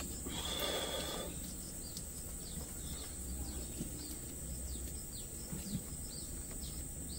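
Rural outdoor ambience: a steady high-pitched insect drone with many short, quick bird chirps throughout. A louder burst lasting about a second comes near the start.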